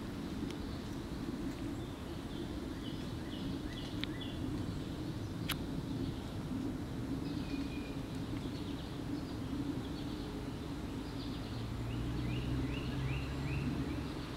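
Backyard ambience: a small bird singing runs of short, quickly repeated high chirps near the start and again near the end, over a steady low hum. A single sharp click about five seconds in, and a low rumble swells near the end.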